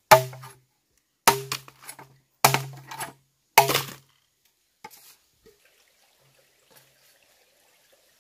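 Four hard, ringing strikes on hollow bamboo, about a second apart, each leaving a short low ring, followed by a few faint taps.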